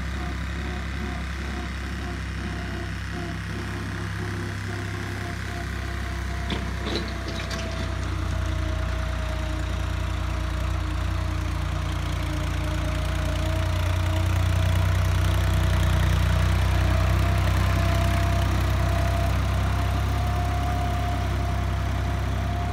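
Farm tractor engine running steadily while pulling a tined cultivator, getting louder about eight seconds in and again around the middle. There is a brief clatter about seven seconds in.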